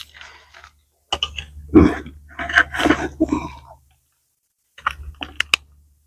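Handling noises at a bucket of particle bait: a run of rough scraping and rustling for about three seconds, then a few sharp clicks about five seconds in.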